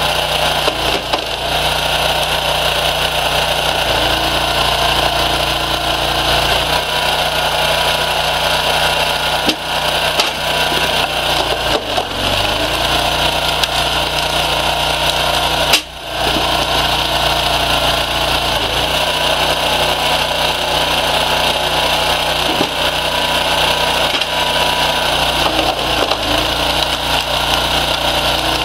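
Engine of a homemade firewood splitter running steadily, with a few short knocks as log rounds are forced through its star-shaped wedge and split into several pieces.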